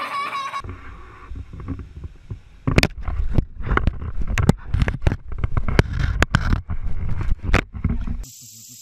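An action camera being bitten and mouthed by a crocodilian: a low rumble with a rapid, irregular run of sharp knocks and scrapes as the jaws and teeth strike the camera housing. A child's crying trails off in the first half-second, and the knocking cuts off abruptly near the end into a steady hiss.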